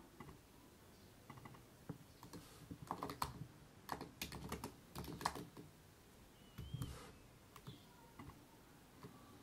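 Typing on a computer keyboard: quick runs of faint key clicks, densest in the middle, with a shorter run and a few scattered clicks later.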